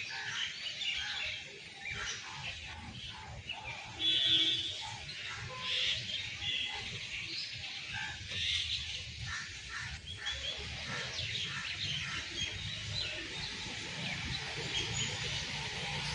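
Several wild birds chirping and calling in quick short notes, one call standing out louder about four seconds in, over a steady low rumble.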